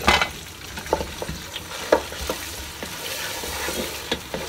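Boiled beef chunks dropping into hot oil in a pot and sizzling, with a wooden spoon knocking against the pot as the meat is stirred. A burst of sizzle comes as the meat goes in, then a steady frying hiss under a few sharp knocks.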